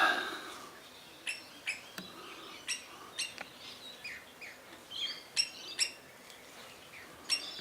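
Wild birds chirping: short, sharp calls every second or so, several in pairs about half a second apart, with a few softer falling notes in between.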